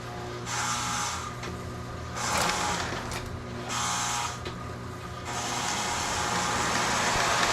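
Lionel MPC-era O-gauge locomotive's electric motor humming steadily as it pulls a long freight train, wheels rolling and clattering on the three-rail track. The rolling noise swells and fades several times and grows steadier and louder near the end.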